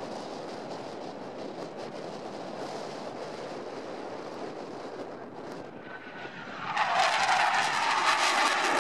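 Jet noise from a Dassault Rafale fighter's twin M88 turbofan engines: a steady distant rumble that grows suddenly louder and brighter about seven seconds in as the jet comes closer, with a faint rising whine just before.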